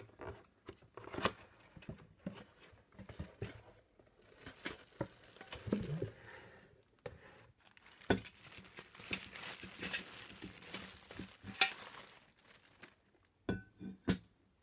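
Unboxing handling: a cardboard box opened, then a stainless steel water pot unwrapped from a crinkling plastic bag, with scattered clicks and knocks. Two sharp knocks near the end.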